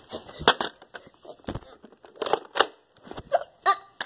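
Scattered sharp clicks and knocks, with a couple of brief voice sounds near the end.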